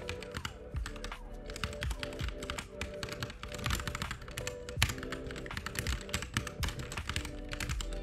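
Computer keyboard keystrokes: quick irregular runs of key taps as vim cursor-movement keys are pressed. Steady background music plays underneath.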